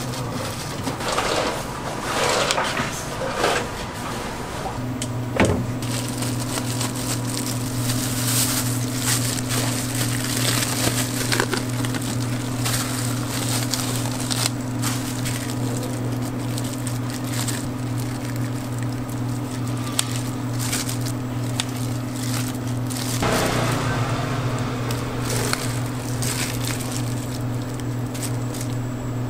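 A steady low machine hum starts about five seconds in, under scattered clatter and knocks.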